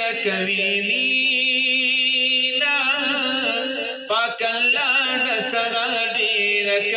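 A man's voice singing a Pashto naat, a devotional poem praising the Prophet, with long held notes that waver in pitch and a short break for breath about four seconds in.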